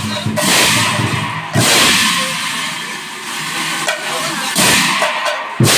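Large brass cymbals (taal) clashed in a loose, uneven rhythm, about five ringing crashes, with deeper nagara kettle-drum strokes under the loudest ones.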